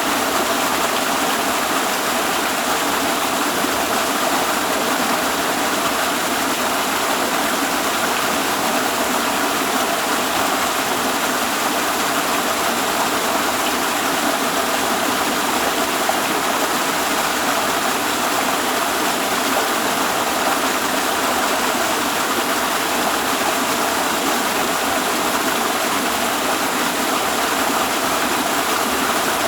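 Waterfall: falling water rushing in a steady, unbroken hiss with no change in level.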